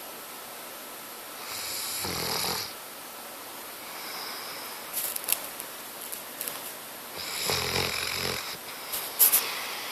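A dog snoring in its sleep: two long snores about six seconds apart, each a low flutter with a breathy hiss. Sharp clicks come between and after them, the loudest near the end.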